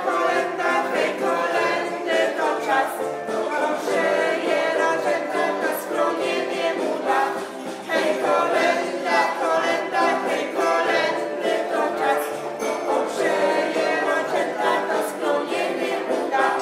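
A small group of young voices singing a Polish Christmas song together over musical accompaniment.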